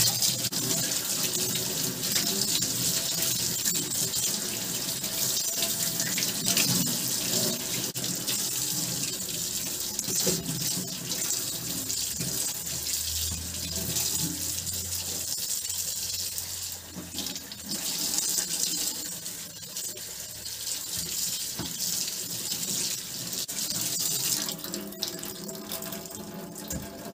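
Kitchen tap running into a stainless steel sink, the stream splashing over a raw leg of lamb turned under it by hand; the splashing rises and falls as the meat moves through the water.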